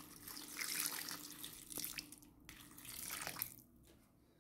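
Water poured from a glass into the stainless steel bowl of a kitchen robot, splashing onto chickpeas and potato chunks; the pouring tails off about three and a half seconds in.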